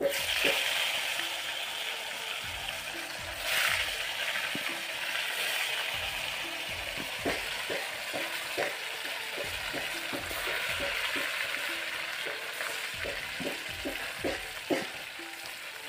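Fish pieces deep-frying in hot oil in a black iron kadai: a steady sizzle with frequent small pops and crackles. The sizzle swells briefly about three and a half seconds in.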